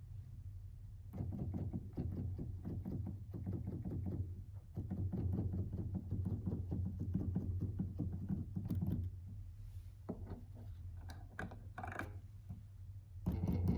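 Keys of a Native Instruments Komplete Kontrol S88 MK2 keyboard being played as quick runs of key thunks, with the 4D encoder knob giving a mechanical buzz as it vibrates each time a key is hit. This is a fault the owner finds pretty noticeable. The strikes thin out to a few separate hits after about ten seconds, over a steady low hum.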